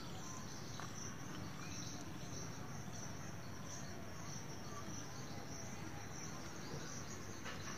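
Insects chirring steadily in a high-pitched continuous drone, with a few faint rustles of plant stems being handled.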